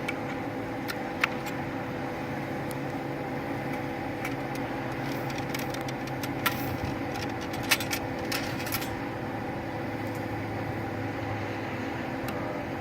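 Several sharp taps and knocks, scattered through the middle, as the patched round ball is driven into the muzzle of a flintlock Kentucky rifle with a short starter, over a steady mechanical hum.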